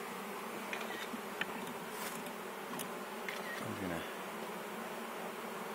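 A colony of honeybees buzzing steadily around an open hive as they are being installed, with a few faint clicks. One buzz drops in pitch about four seconds in.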